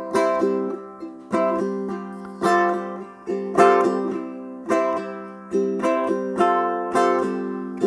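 Ukulele strumming chords, about one strum a second, each chord left to ring out between strums.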